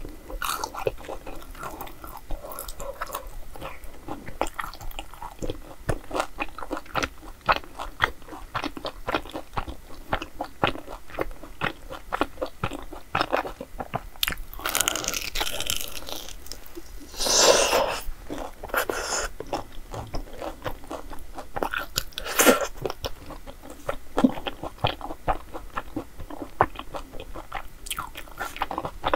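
Close-miked eating: a person bites and chews chewy rice-dough desserts with crisp, fried edges, making rapid wet mouth clicks and crunches. It grows louder for a moment about halfway through and again a few seconds later.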